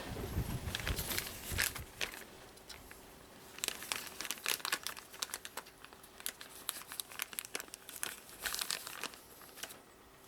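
Crinkling and rustling with many irregular sharp clicks, in three bouts: at the start, again from about three and a half seconds in, and again from about six and a half to nine seconds.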